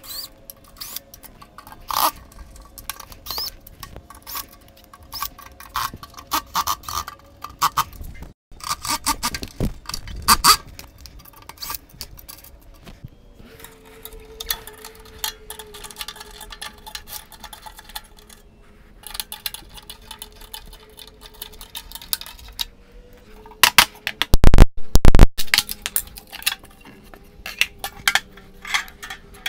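Cordless drill backing out screws rusted into a metal table frame, its motor running in long steady stretches among many clicks and rattles of the bit, screws and frame. A few very loud knocks come about twenty-four seconds in.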